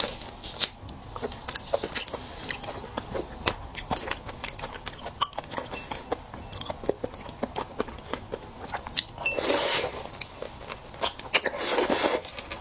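Close-up eating of raw spiny lobster: many sharp clicks and crackles of shell being bitten and chewed, with two longer sucking slurps near the end.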